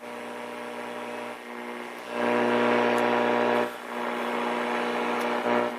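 Mopar 855 AM car radio switched on and humming steadily, with a hiss of static between stations that grows louder about two seconds in.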